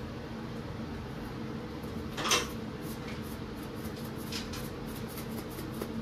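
A plastic shaker of pink Himalayan salt handled over a bowl: one sharp plastic clatter about two seconds in, then a few lighter clicks. A steady low hum runs underneath.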